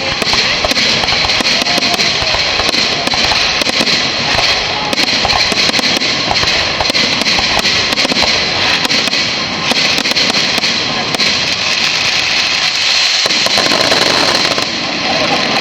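Fireworks display: a dense, continuous barrage of shells bursting and crackling, many bangs and pops every second.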